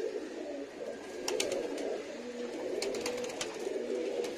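Domestic pigeons in a loft cooing continuously, several low warbling coos overlapping. A few short, sharp clicks come through from about a second in.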